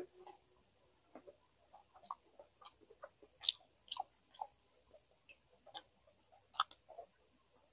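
Close-miked eating: irregular wet mouth clicks and smacks of chewing, several a second.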